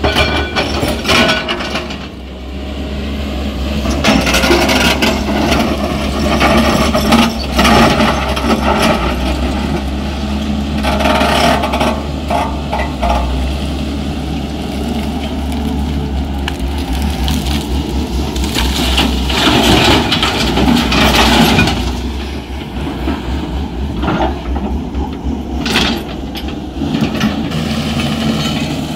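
Hyundai 210 crawler excavator's diesel engine running steadily under load while its bucket digs and scrapes through red earth and rock. Irregular crunches, knocks and clinks of stones come over the engine and are loudest a little past the middle.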